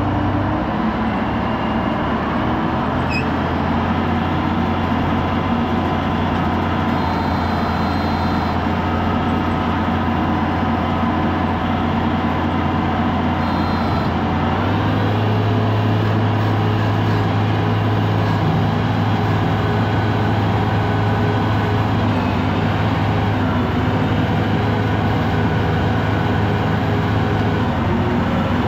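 Farm tractor engine running steadily under load while pulling a Kuhn Knight side-discharge slinger manure spreader across a field; the engine speed steps up about halfway through.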